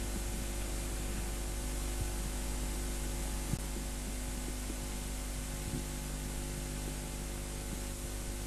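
Steady electrical mains hum with hiss on the recording, with a couple of faint brief knocks.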